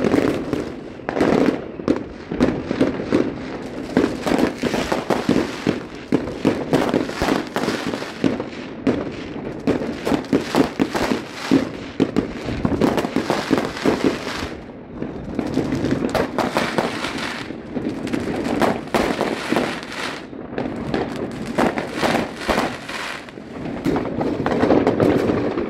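Fireworks going off in a dense, unbroken barrage: many overlapping bangs and crackles, one after another.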